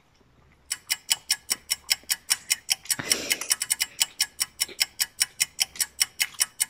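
Fast, even clock ticking, about five ticks a second, starting just under a second in and stopping near the end: a suspense ticking-clock sound effect.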